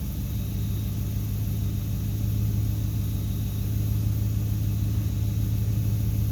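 An engine running steadily at idle, a low, even hum with no revving or change.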